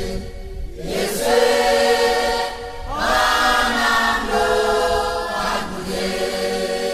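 Choir singing an Ewe gospel song, the voices holding long notes in phrases of about a second each with short breaks between them.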